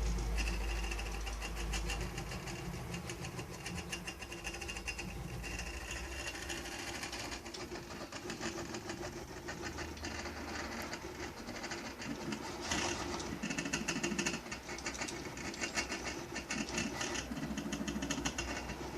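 Small salvaged stepper motors of a homemade Arduino-driven CNC drawing machine stepping through a series of moves. The sound is a fast buzzing ticking whose pitch changes from one move to the next.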